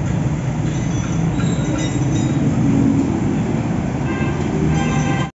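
Ravi Piaggio motorcycle engine idling steadily with a low, even rumble.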